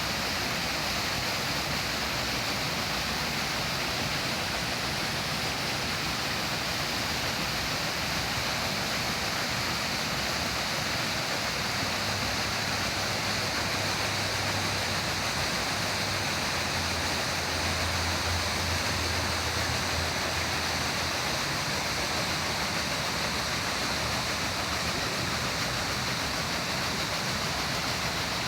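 Steady, even rush of falling water, like heavy rain or a waterfall, unbroken throughout. A low hum rises under it for several seconds in the middle.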